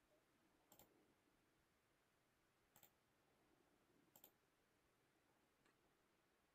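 Near silence with three faint, short clicks, about one, three and four seconds in.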